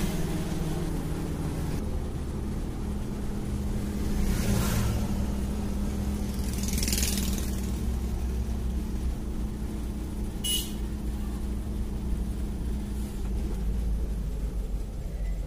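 Engine and road noise of a car heard from inside the cabin while driving, a steady low hum with engine tones. Two brief hissing rushes come about four and seven seconds in, and a short sharp click about ten seconds in.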